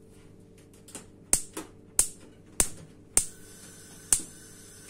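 Gas hob's spark igniter clicking as a burner is lit: five sharp snaps, spaced about half a second to a second apart.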